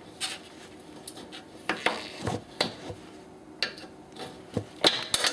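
Flat screwdriver scraping and clicking against the metal bump-stop cup as it pries an old, disintegrating rubber bump stop down out of the cup, in irregular scrapes and knocks.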